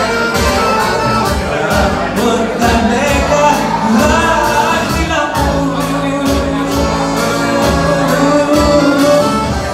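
Live band music with singing over a steady beat.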